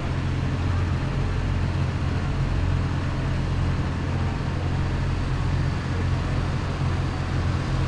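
Large farm tractor's diesel engine running steadily with a deep, even drone during a tractor-pull run.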